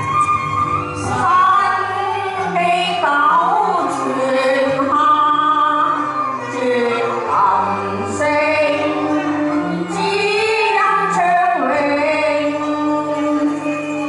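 Cantonese opera song sung by a woman with a microphone over instrumental accompaniment, her voice sliding and ornamenting the melody.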